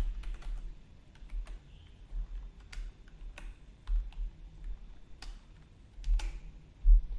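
Typing on a computer keyboard: irregular key clicks with dull thumps, the loudest a heavier thump near the end.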